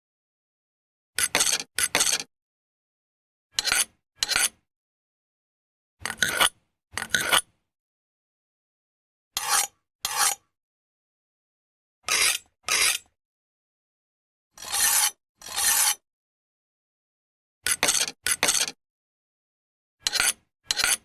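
Knife blade being sharpened: eight pairs of short scraping strokes of the blade against the sharpener, about every two and a half seconds, with dead silence between the pairs.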